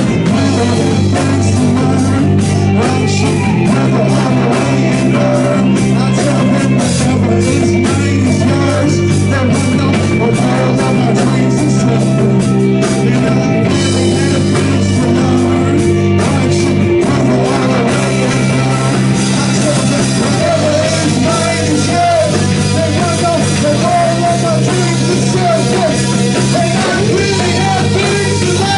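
A rock band playing live, with electric guitar and a drum kit over steady low notes that shift every few seconds. A lead vocal comes in about two-thirds of the way through.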